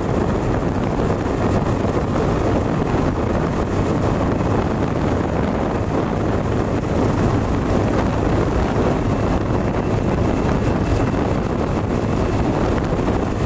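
Motorcycle riding at a steady cruising speed: steady wind rushing over the microphone, mixed with the engine's even running.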